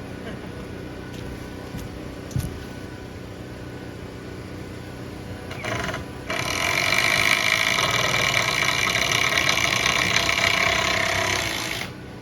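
A single knock, then a power tool's motor gives a brief start and runs loud and steady for about five and a half seconds before winding down near the end.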